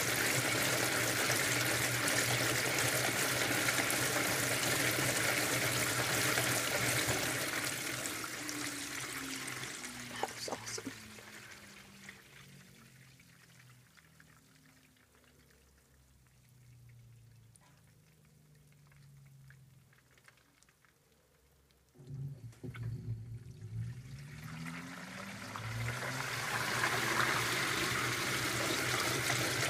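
2012 LG top-load washer agitating a large load: water and clothes churning as the wash plate spins. About eight seconds in, the motor winds down with a falling whine and the tub coasts quietly. At about 22 seconds the motor kicks back in with a rising whine and the churning builds again.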